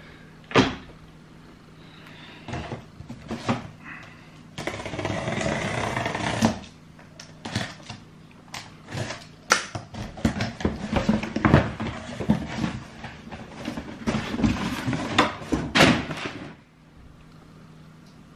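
Sneakers and a cardboard shoe box being handled: a single knock right at the start, about two seconds of rustling a few seconds in, then a busy run of knocks, taps and rustles that stops about a second and a half before the end.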